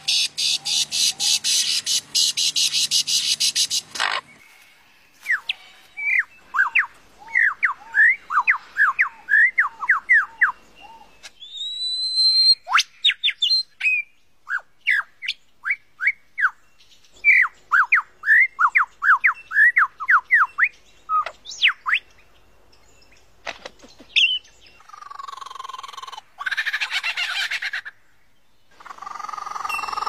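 Superb lyrebird song: runs of quick, sharp whistled notes, each run lasting several seconds, with a rising whistle among them and a brief pause midway. It opens with a loud, dense rattling noise that cuts off about four seconds in, and harsher calls come near the end.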